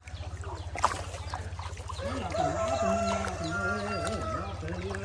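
A rooster crowing: one long drawn-out crow from about two seconds in, over a steady low hum. A single sharp knock comes just under a second in.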